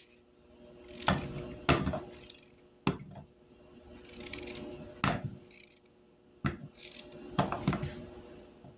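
Paring knife chopping peeled potatoes: several sharp, irregularly spaced knocks of the blade coming down, with short scraping sounds between them.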